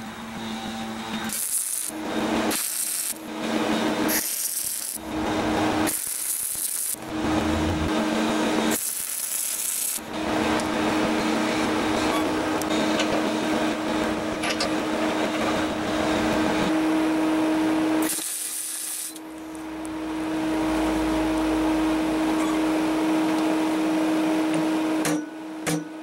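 MIG welding a nut onto a steel foot plate: the arc crackles and hisses in several separate bursts over a steady hum. A few sharp metal knocks come near the end.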